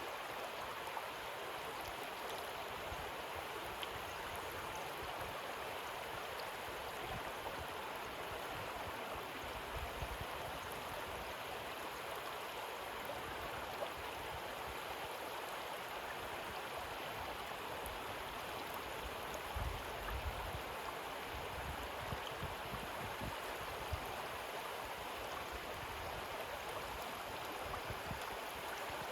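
Shallow river running over pebbles, a steady rushing babble of water, with a few brief low rumbles about twenty seconds in.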